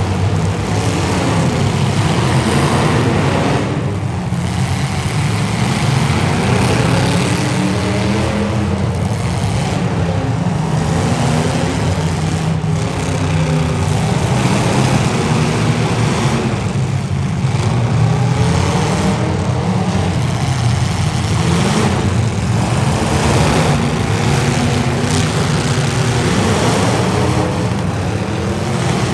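Several demolition derby cars' engines running and revving together, their pitches rising and falling over one another in a steady din.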